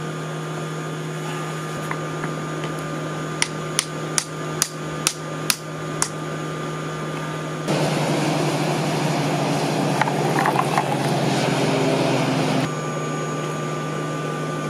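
Hand hammer striking the hot railroad spike on a steel anvil: about seven quick, sharp blows in two and a half seconds, while the spike is bent into corkscrew curves. About eight seconds in, a louder rushing noise from the coal forge with its air blast on takes over for about five seconds, then stops suddenly. A steady low hum runs under it all.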